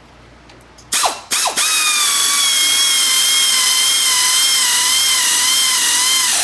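Power ratchet running a bolt down: two short spin-up blips about a second in, then a steady whine of about five seconds that stops abruptly.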